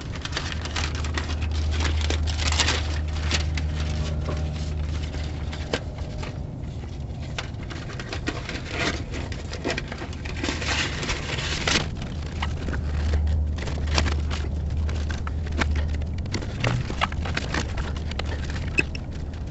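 Irregular rustling, crackling and scraping from hands handling exhaust-repair materials, over a low steady hum that drops away for a few seconds midway.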